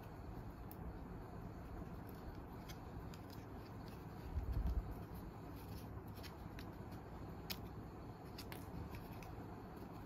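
Hands handling a small plastic part of a manual toy BB gun: faint rustling with scattered light plastic clicks, and a dull low bump about four and a half seconds in.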